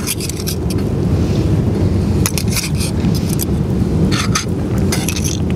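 A metal fork clinking and scraping against aluminium camping pots as spaghetti and cockles are served out, a few light clinks spread through, over a steady low rumble.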